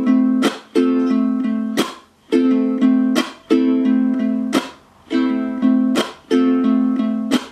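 Ukulele with a low G string strummed in a thumb-down, thumb-down, chunk pattern, moving between A minor and F chords. Each bar ends in a sharp, muted percussive chunk.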